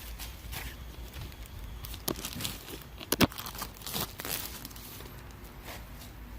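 Plastic bag crinkling and rustling as a new wheel hub assembly is unwrapped, with a few sharp clicks, the loudest about three seconds in.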